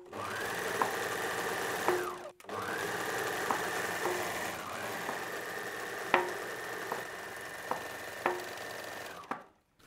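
Four-thread overlocker (serger) running steadily as it overlocks the edge of a woven runner, with a high whine that rises as it speeds up. It stops briefly about two seconds in, starts again and runs until near the end, with a few light clicks.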